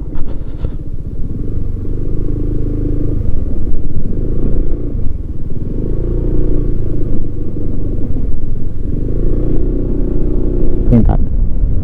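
Motorcycle engine running on the move, its note rising and falling about three times as the throttle is opened and eased.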